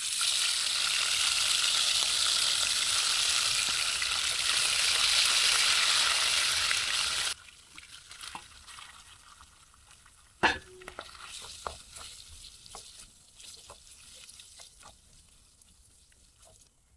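Green pepper and pork stir-frying in a hot pan, sizzling loudly for about seven seconds before cutting off suddenly. Then a quieter stretch of utensil scrapes and clicks, with one sharp knock about ten seconds in.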